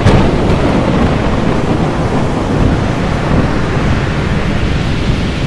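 Thunderstorm-at-sea sound effect: a sharp thunderclap right at the start, then loud, steady storm noise of wind, rain and surf.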